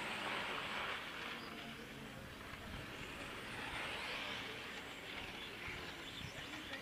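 1/8-scale electric on-road RC racing cars running on an asphalt track, a steady hiss of motors and tyres, loudest in the first second as cars pass close, then a little fainter as they move away.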